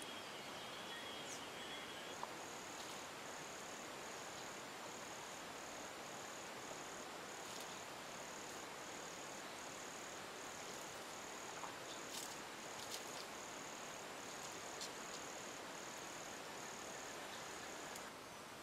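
High-pitched insect trilling in a long run of short pulses with brief gaps, starting about two seconds in and stopping just before the end, over a steady outdoor hiss. A lower, steady insect drone stops about two seconds in, and a few faint clicks sound in the middle.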